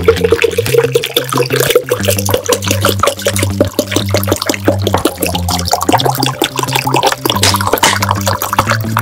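Liquid glugging out of an upturned plastic bottle into a glass jar in quick, uneven gulps, rising in pitch toward the end, over background music.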